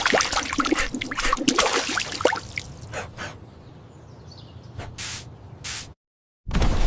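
Cola spraying and fizzing, with a dense crackle of small pops for the first couple of seconds, then a softer hiss. Two short spurts of spray come near the middle of the second half. The sound cuts out briefly near the end, then a loud rush of spray starts again.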